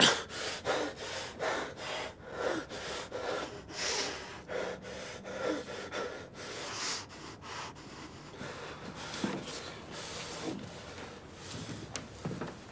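A person breathing hard in short, quick breaths, about two a second, slowing and thinning out in the second half.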